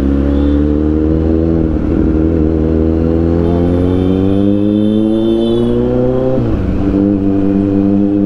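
Kawasaki Z900's inline-four engine pulling under throttle, its pitch rising slowly for about six seconds. The pitch then drops suddenly and the engine runs on steady.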